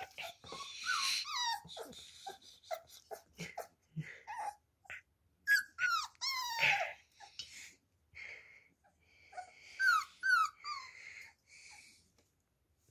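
Beagle puppy whimpering and squeaking in short, high, falling cries, in bouts about a second in, around six seconds in and around ten seconds in, with scattered soft clicks and knocks between them.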